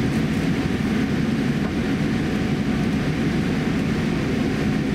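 Steady low rumble inside the cabin of a Boeing 787-8 airliner taxiing after landing: its Rolls-Royce Trent 1000 engines running at taxi power and the aircraft rolling along the taxiway.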